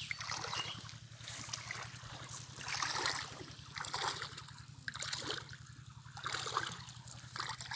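Shallow river water sloshing and splashing around a man's legs as he wades through it, in uneven splashes about a second apart.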